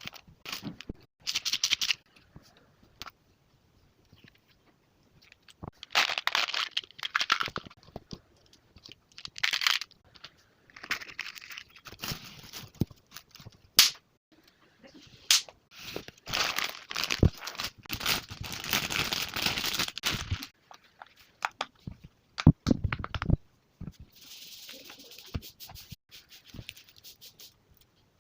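Plastic packaging of a fidget-toy parcel crinkling and tearing in irregular bursts, with a few sharp clicks and taps in between.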